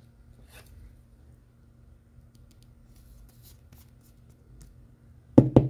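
Faint rustling and scraping of a Pokémon card being slid into plastic card sleeves for double sleeving, with a few light ticks. Two sharp knocks come close together near the end.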